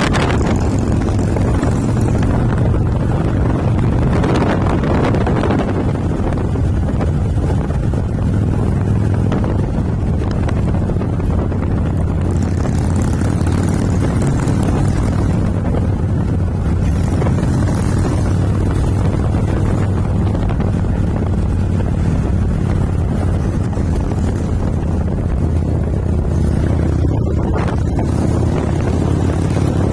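Harley-Davidson V-twin motorcycle engine running steadily at road speed, heard from on the bike, with wind rushing over the microphone.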